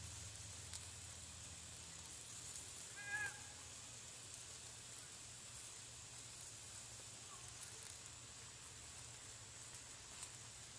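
Faint sizzling of freshly added vegetables in a stainless skillet over a propane burner, under a low steady hum. About three seconds in, a brief high-pitched call.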